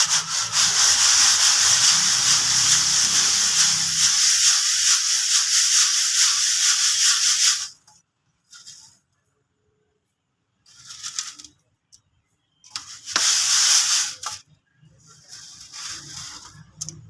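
Dry crumbled sand-cement and white concrete being rubbed through a sifter, a steady gritty rasp that stops about seven and a half seconds in. Several short bursts of the same scraping follow.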